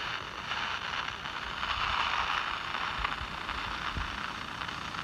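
Steady hiss of radio static from a Panabox spirit box, with a few faint low thumps. The caption "Hear me" marks a voice in the static that the investigators take for a spirit speaking.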